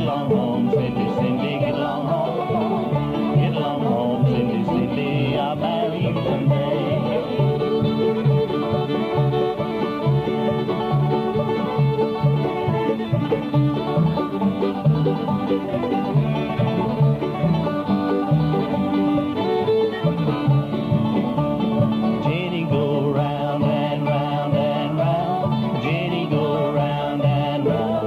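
Ozarks old-time string band playing a tune, led by banjo and fiddle. The sound is dull, with no highs, as on an old cassette field recording.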